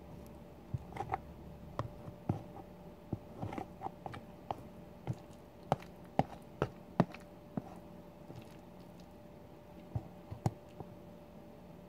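Close-miked eating of a macaroni, rice and chicken goulash: chewing with irregular sharp mouth clicks and smacks, the loudest about seven seconds in.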